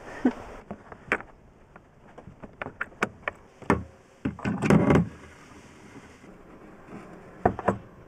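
12 mm plastic pushfit water pipe being fed through a hole in a van's wooden framing and wall panel: scattered knocks, clicks and scrapes, busiest in the middle.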